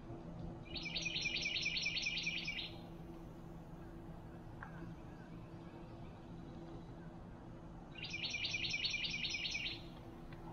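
Boat-tailed grackle calling: two bursts of rapidly repeated harsh notes, about five a second, each lasting about two seconds. One comes about a second in and the other near the end.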